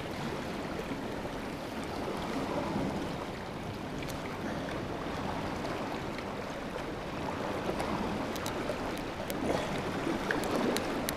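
Sea water washing and splashing against the rocks below: a steady rush of surf, with a few faint clicks near the end.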